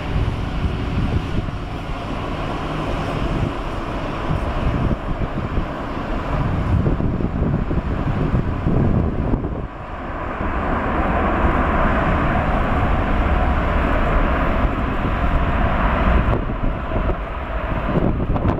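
Boeing 747-8 freighter's four GEnx-2B turbofan engines, heard as a loud, steady jet roar as the aircraft rolls down the runway after touchdown. The roar drops out briefly about halfway through, then comes back louder.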